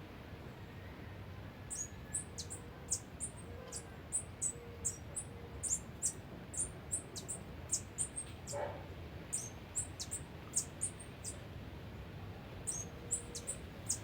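A small bird chirping: a rapid series of short, very high, downward-sweeping chirps, about three a second, pausing briefly near the end before starting again.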